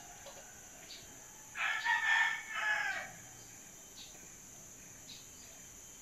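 A rooster crowing once, one call about a second and a half long starting about one and a half seconds in and falling off at the end, over a steady faint high hiss.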